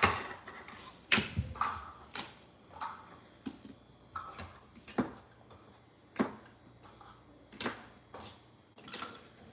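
Scattered light knocks and clatter of toy food, small wooden crates and paper plates being picked up and set down on a wooden floor, a dozen or so irregular taps.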